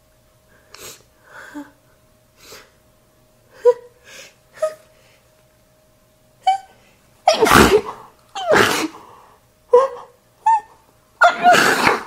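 A woman's wet, snotty sneezes into a tissue. Short sniffs and catching breaths come through the first half, then a run of loud sneezes in the second half.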